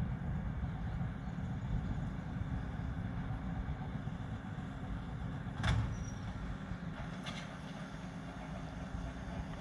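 New Holland T7 245 tractor and round baler running: a steady low rumble with a faint steady hum, and two short knocks a little past halfway, about a second and a half apart.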